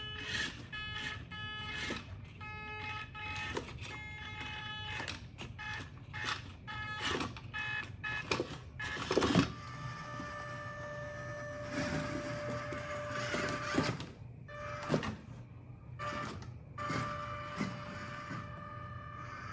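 Electric motor and gearbox of a scale RC crawler truck whining, stopping and starting in short spurts of throttle, then running more steadily from about halfway through, with a few sharp clicks and knocks.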